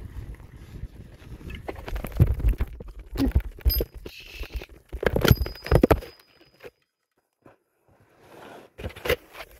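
Bicycle crash on a dirt trail. First a low rumble of riding, then a run of hard knocks and clatters as the bike and the handheld phone go down into the dirt, loudest about five seconds in. After a couple of seconds of near stillness, a few clicks and some rustling come near the end.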